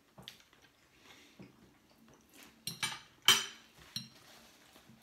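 Forks clinking against dinner plates: a handful of short, sharp clinks, the loudest about three seconds in.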